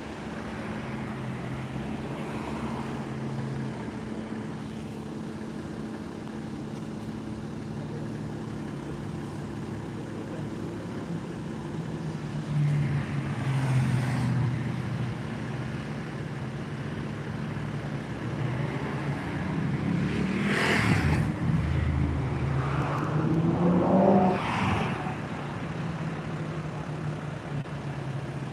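Slow stream of cars passing close by, their engines running steadily. A motorcycle passes about halfway through. Near the end there is a louder pass, then an engine is revved up with its pitch climbing.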